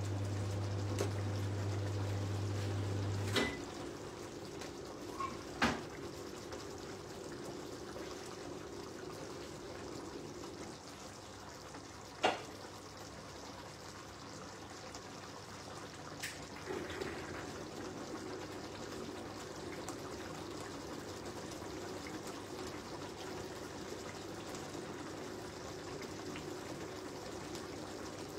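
Tomato sauce simmering in a frying pan, bubbling steadily. A low hum stops with a click about three seconds in, and a few sharp clicks follow later.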